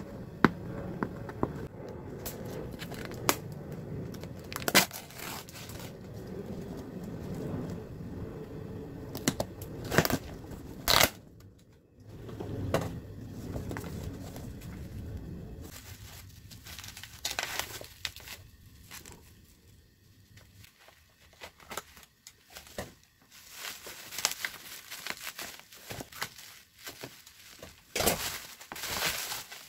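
A cardboard shipping box being torn open by hand, with tape and cardboard ripping, and bubble-wrap packing rustling and crinkling. There are many irregular sharp snaps and rips.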